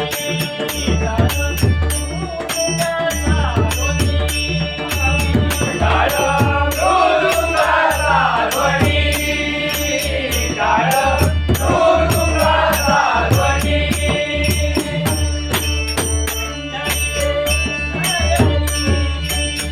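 Marathi abhang sung in Malvani bhajan style: a singing voice in phrases over a pakhawaj drum and small hand cymbals keeping a fast, steady beat.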